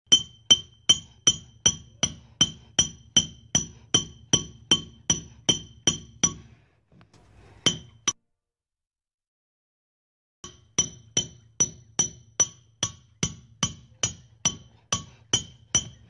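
Hammer driving a nail with steady blows about two and a half a second, each with a bright metallic ring. The strikes stop about six seconds in, two single blows follow, then after a few seconds of silence the steady hammering starts again.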